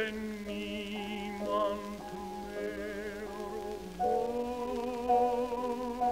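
Tenor singing a German art song with piano. He holds one long note with vibrato, then steps up about four seconds in to a second held note, while the piano plays changing chords beneath.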